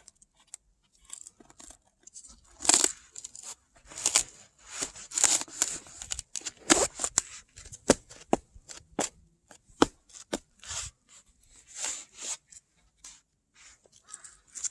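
Ice crunching and crackling in a long run of irregular sharp crunches.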